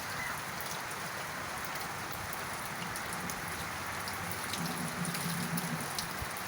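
Steady rain falling, with individual drops ticking. A faint low hum rises briefly about two-thirds of the way in.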